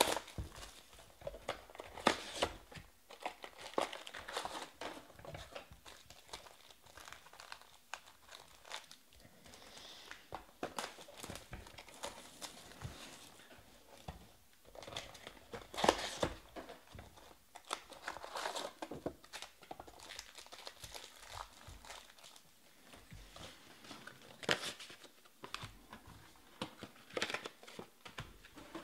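Plastic wrapping on a sealed box of baseball card packs crinkling and tearing as the box is unwrapped, and its plastic-wrapped packs rustling as they are pulled out and stacked, in irregular crackles and rustles.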